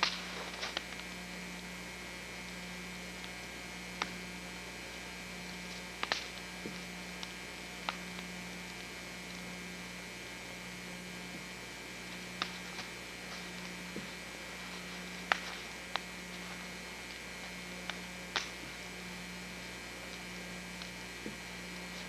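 A steady low electrical hum, with a sharp click every few seconds at irregular intervals.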